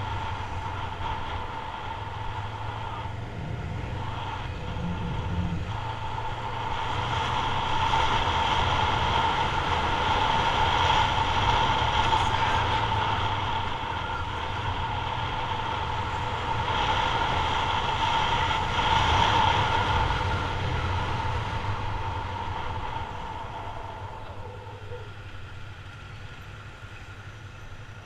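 Yamaha MT-03's 321 cc parallel-twin engine running under way at low speed, mixed with wind rush. It swells louder twice in the middle and eases off near the end as the bike slows.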